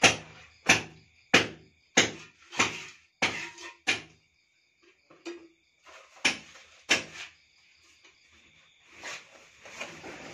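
A run of sharp knocks, about one every half second, seven in a row, then two more a couple of seconds later: a mason's steel trowel striking the rim of a bucket of tile mortar. Crickets chirp steadily behind.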